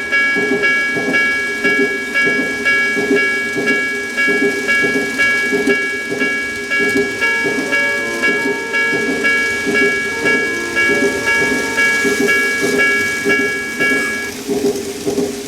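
Electronic warning chime of a TOMIX 5569 TCS automatic level crossing II model, a rapidly repeating ding that stops about a second before the end, over the steady clatter and hum of a model train running past on the track.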